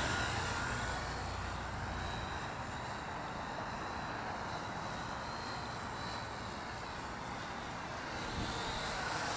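Syma X8W quadcopter's brushed motors whining steadily in flight, a faint high tone over wind noise.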